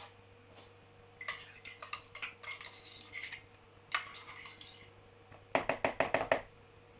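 Table knife scraping soft cream cheese out of a small ceramic dish into a glass mixing bowl, with scattered scrapes and clinks of metal on the dish. Near the end comes a quick run of about six sharp taps of the knife against the bowl.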